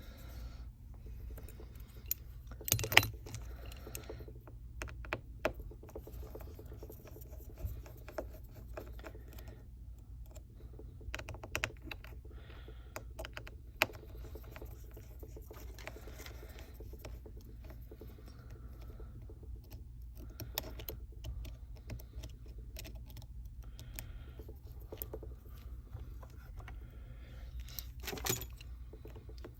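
Small hand tools clicking and tapping against a smartphone's internal parts during disassembly: scattered light clicks and scrapes, the sharpest about three seconds in and another near the end, over a steady low hum.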